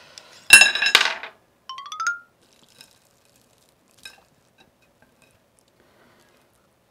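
Wooden chopsticks dropped onto a ceramic plate, a loud clattering clink with a brief ring about half a second in. A short rising comic sound effect follows, then a few light taps of chopsticks on the plate.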